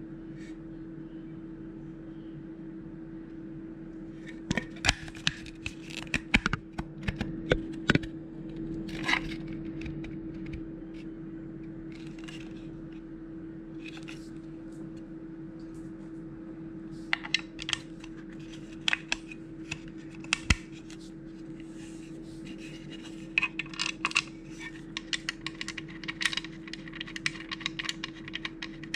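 Hard plastic clicking and clattering in short bursts as inline skate wheels and a clear moulded plastic piece are handled and knocked together, over a steady low hum.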